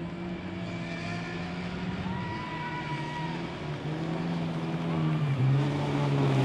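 Engines of several folkrace cars racing in a pack on a dirt track, revving up and down. The sound grows louder about five seconds in as the cars come closer.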